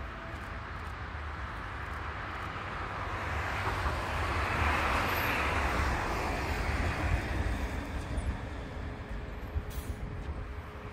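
Modern low-floor articulated tram approaching on grassed track, its rolling noise swelling to its loudest about halfway through, then easing as it slows to a stop, with a steady hum coming in during the second half.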